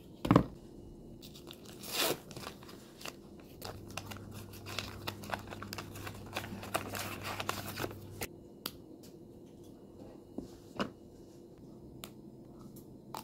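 Gold foil wrapper of a chocolate bar crinkling and tearing as it is unwrapped, a dense crackle for about four seconds in the middle. There is a sharp knock near the start and a few separate snaps later on, as pieces of dark chocolate are broken off.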